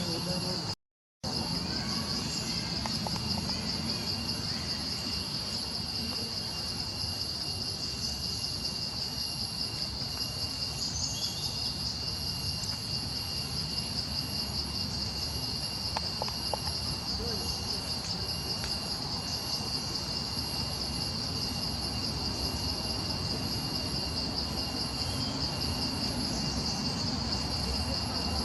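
Steady, high-pitched insect chorus pulsing rapidly, over low background noise; the sound cuts out briefly about a second in.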